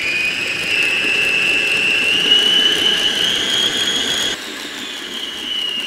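Arno electric mixer's motor running with a steady high whine as its wire beaters whip chilled cream, the pitch creeping slowly upward; the level drops a little about four seconds in.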